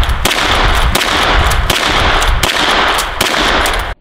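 A rifle fired in quick succession, about six shots roughly two-thirds of a second apart, over a steady loud hiss that cuts off abruptly just before the end.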